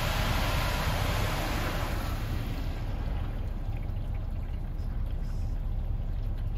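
High-pressure water spray from a Ryko Radius HT touchless car wash hitting the car's windshield, heard from inside the car. The spray stops about two and a half seconds in, leaving water trickling down the glass over a low steady rumble.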